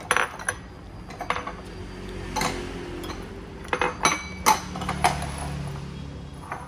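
Ceramic bowls and dishes being handled and set down, clinking and knocking against one another in a string of sharp clinks with short ringing.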